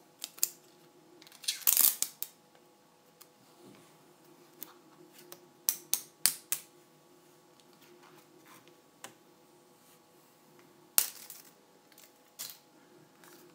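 Thin plastic protective film being peeled off the glossy casing of an Apple AirPort Express, crackling and rustling in scattered bursts, with the loudest clusters about 2 s and 6 s in and a sharp crackle about 11 s in.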